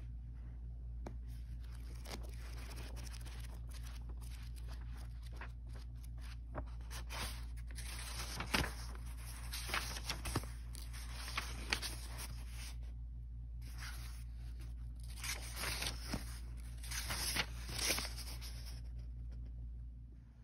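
Paperback book's paper pages being handled and flipped: a scattered series of short rustles and soft scrapes, denser in the second half, over a steady low hum.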